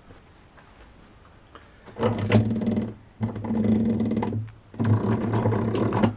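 A workshop machine's motor running in three short bursts of about a second each, with a steady low hum.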